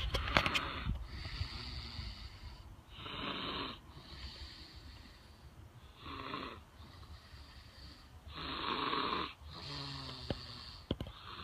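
Snoring, with a noisy breath about every two to three seconds. A few sharp clicks right at the start.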